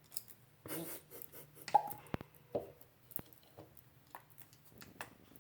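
Scattered light clicks, taps and rustles of small objects, such as parrot toys, being handled and set down, with a few short sharper sounds.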